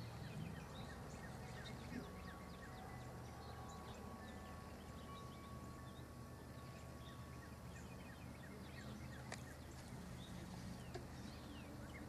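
Faint outdoor ambience: scattered short chirps of small birds over a low, steady hum.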